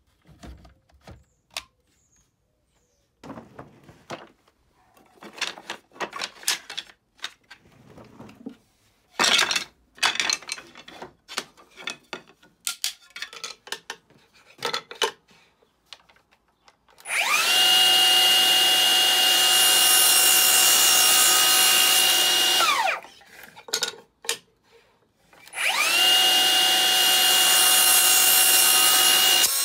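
Cordless HiKOKI 36V MultiVolt sliding mitre saw. First come scattered clicks and knocks as its battery is fitted and a strip of wood is set against the fence. Then the motor spins up with a rising whine and runs steadily for about five seconds while crosscutting the wood, and winds down. A second cut starts near the end.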